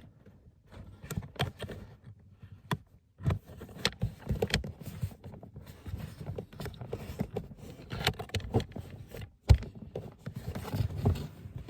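Irregular clicks, taps and knocks of hands and a tool working a plastic push-pin plug loose from an interior trim panel of a Mercedes GLC.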